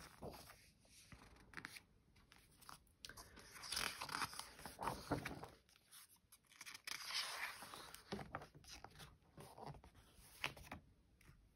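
Pages of a picture book being turned and pressed flat by hand: faint paper rustling and sliding in a few spells, with scattered light taps.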